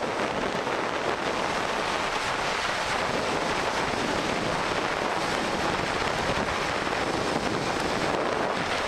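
Steady rush of wind over the microphone of a camera speeding down a zip line.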